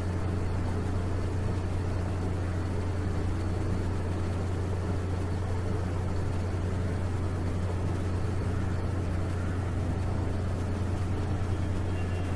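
Steady low hum with an even hiss: the constant background noise of the recording, with no other sound.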